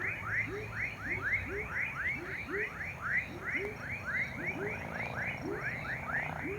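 Chorus of frogs and tree frogs calling: many overlapping short, high chirps, several a second, with a lower, deeper call repeating about twice a second.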